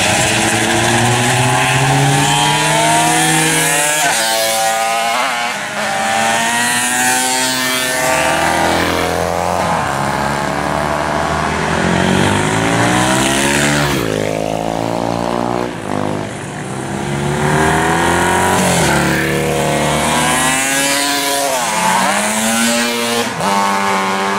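Vintage racing motorcycles, 1969 and older, passing one after another at racing speed. Each engine note climbs as the bike accelerates toward the mic, then drops as it goes by, several times over.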